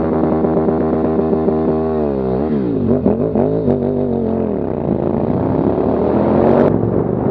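Motorcycle engine running at steady revs, then dropping and blipping up and down a couple of seconds in, and climbing gradually before an abrupt change near the end.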